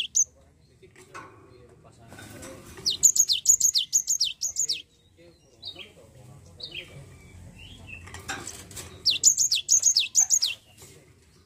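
Cinereous tit singing two bursts of quick, high whistled notes, each note sweeping downward, about eight notes to a burst, the bursts some six seconds apart. Faint knocks come from the cage between the bursts.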